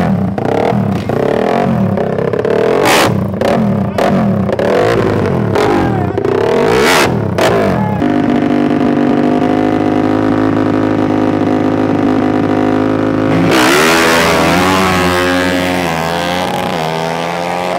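Racing engines revved in sharp, repeated blips with cracks, then held at a steady pitch. About 13.5 s in comes a hard launch, with pitch sweeping upward and dropping back several times as it pulls away through the gears.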